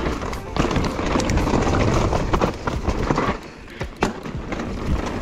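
Mountain bike rolling fast down a rocky trail: tyres crunching over stones and the bike knocking and rattling at each jolt. The noise drops briefly about three and a half seconds in, then picks up again.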